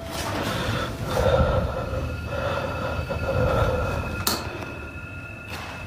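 Uneven low rumble of a handheld phone being moved about in a quiet room, with a faint steady whine and one sharp click about four seconds in.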